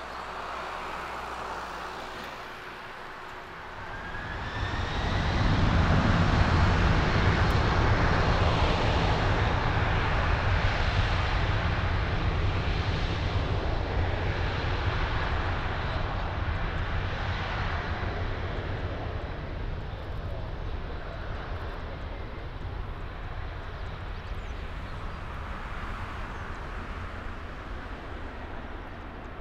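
Four jet engines of a Boeing 747 freighter spooling up to takeoff thrust about four seconds in: a rising whine over a heavy low rumble. The engine noise then runs steady and slowly fades as the jet rolls away on its takeoff run.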